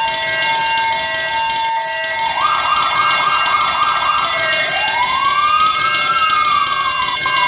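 Layered electronic emergency sirens sold as a fire alarm: first a two-tone alternation, then a fast yelp from about two seconds in, then a slow wail rising and falling, over steady high ringing tones.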